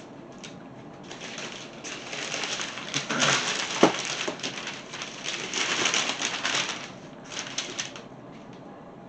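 Cardboard and plastic packaging rustling and crinkling as boxed figures are handled, with a sharp click about four seconds in.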